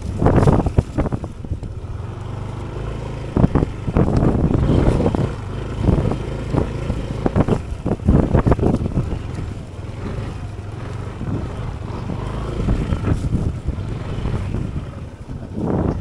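Yamaha NMAX 155 scooter's single-cylinder engine running at low speed, with irregular knocks and rustles as it rides a rough track.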